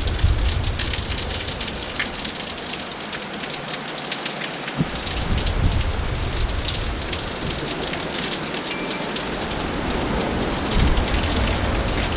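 Heavy rain falling steadily, with strong wind gusting onto the microphone as a low rumble: the rumble is strong at the start, drops out for a few seconds, and returns about five seconds in.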